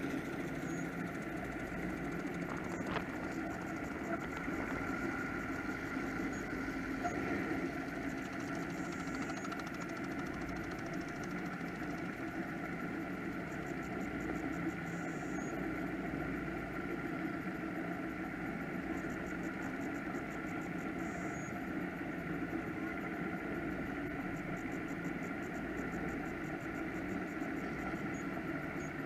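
Offshore powerboat engines idling, a steady unbroken drone.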